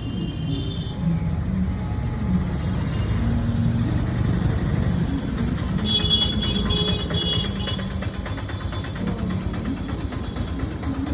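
A steady low engine-like rumble, with a brief high-pitched tone about six seconds in.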